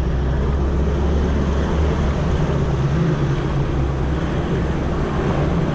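Four-wheel-drive vehicle's engine running steadily at low speed in four-wheel drive as it crawls over a rough stony track, with a low drone and a constant noise of tyres on the stones, heard through a camera held out of the side window.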